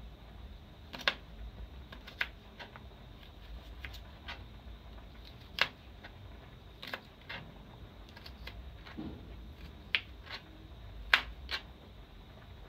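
Kitchen knife slicing a red onion on a plastic chopping board: sharp, irregular knocks as the blade strikes the board, about ten in all.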